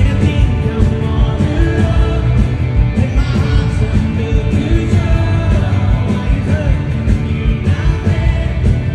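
Live pop-rock band playing loudly through a concert PA, with a male lead vocal singing into a handheld microphone over electric guitar and a steady beat.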